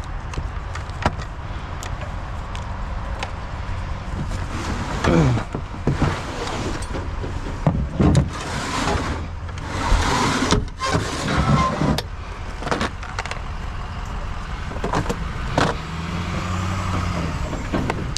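Vehicle engine running steadily, with scattered knocks and clatter over it.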